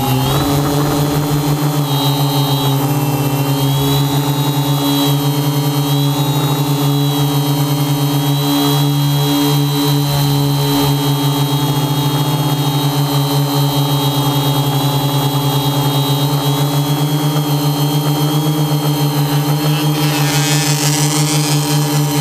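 Multirotor drone's electric motors and propellers running in flight, a steady buzzing hum with several pitches that waver slightly as the throttle changes, heard from the drone's onboard camera.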